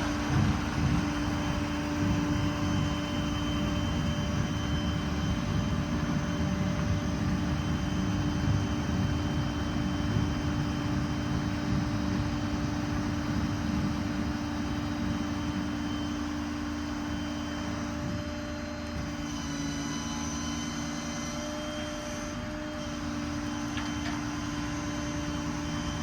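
Stellar 7630 crane's PTO-driven hydraulics working with the truck's 6.7 Powerstroke diesel running: a steady hydraulic whine over the engine's rumble as the boom is raised. The low rumble changes slightly about two-thirds of the way through.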